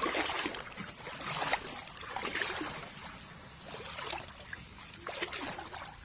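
Water splashing and sloshing in irregular surges, roughly one every second or so.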